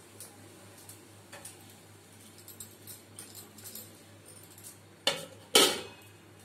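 Steel kitchen utensils and dishes being handled: light clinks, then two sharp metal clanks about half a second apart near the end, the second ringing briefly.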